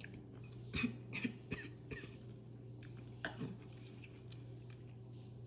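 A few short mouth and throat sounds from a person eating close to the microphone, clustered in the first half, over a steady low hum.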